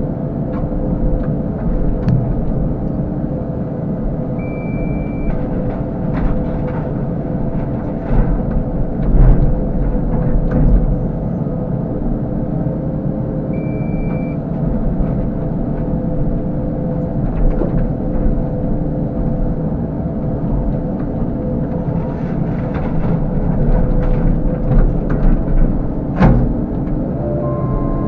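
CAT 308 excavator's diesel engine and hydraulics running steadily, with scattered cracks and knocks of wood framing and shingled roofing being crushed and torn apart by the grapple bucket. A short high beep sounds twice, about five seconds in and again about fourteen seconds in.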